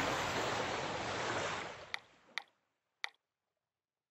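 Steady rushing background noise that fades out about a second and a half in. Three short sharp clicks follow, then dead silence.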